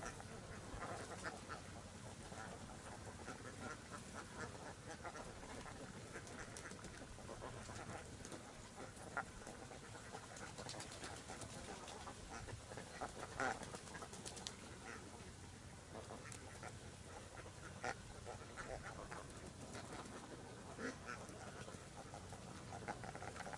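A flock of domestic ducks calling, scattered short quacks over a steady background hiss, the loudest coming about halfway through.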